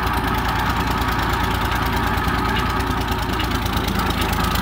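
Engine of construction machinery running steadily at a constant speed, with a rapid even pulse.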